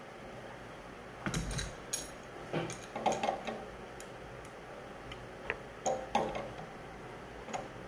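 Wrench clinking and clicking against the brass fittings as a water inlet filter is tightened onto a pressure washer pump inlet: irregular metal taps in small clusters, about a second and a half, three seconds and six seconds in.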